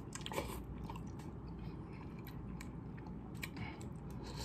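A person eating instant noodles with the mouth close to the microphone: a short slurp of noodles about half a second in, then soft chewing with small wet mouth clicks.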